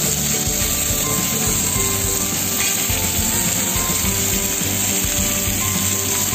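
Pork leg searing in hot oil in a stainless steel frying pan, sizzling steadily as it browns, with background music underneath.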